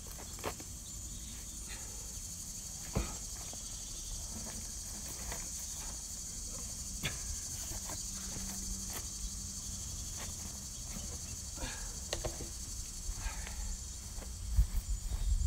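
Steady high-pitched insect chorus, with scattered light knocks as a heavy maple log is shifted on stacked tires, and a few low thumps near the end.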